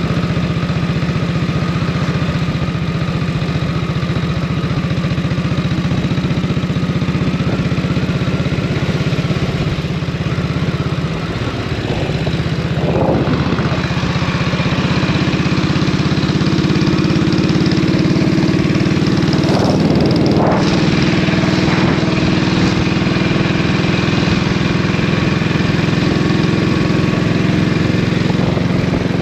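Norton 16H 500cc single-cylinder side-valve motorcycle engine running steadily while ridden, with wind rush on the microphone. The note dips briefly about eleven seconds in and then settles a little higher.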